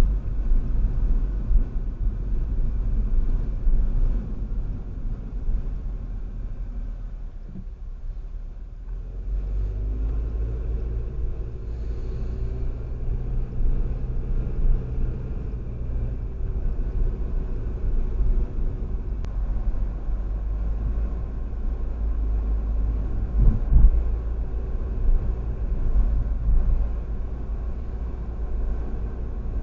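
A car driving along a road: a steady low rumble of engine and tyres, easing off briefly about a quarter of the way through, with a single louder bump about three quarters of the way through.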